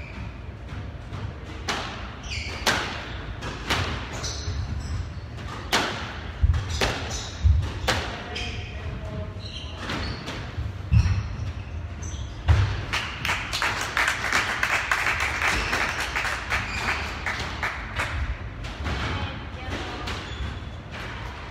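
A squash rally: irregular sharp cracks of the ball off rackets and the court walls, with heavy thuds of footwork and short shoe squeaks on the wooden floor. The loudest hits come in the middle of the rally.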